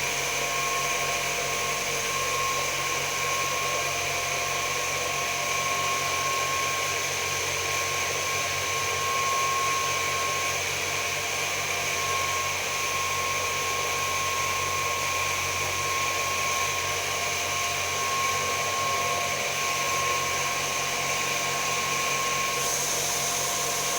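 Hygromatic humidifier running steadily: a motor and fan sound with a constant whine and an airy hiss.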